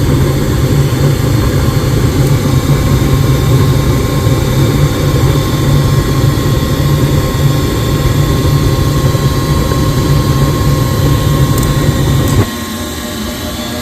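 Gas furnace burners running with a steady low rumble, then cutting out abruptly near the end, leaving a fainter hum. The flame is dying off on its own shortly after ignition, a fault the owner first traces to the flame sensor.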